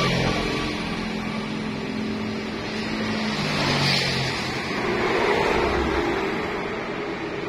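A motor vehicle engine running close by over steady street traffic noise, swelling and shifting in pitch about four seconds in.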